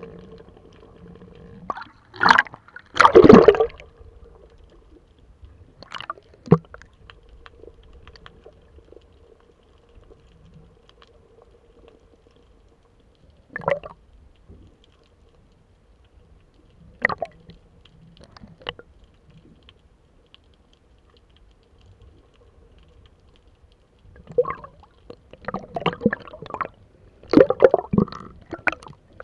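Underwater sound picked up by an action camera in a waterproof housing on a pole: scattered muffled knocks and gurgles of moving water, loudest about two to three seconds in, over a faint steady hum that fades out about halfway. Near the end, close to the surface, the knocks and sloshing come thick and fast.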